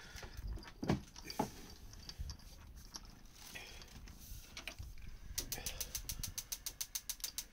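Cat chewing and eating meat, with scattered clicks and, in the last two seconds, a quick, even run of clicks at about eight a second.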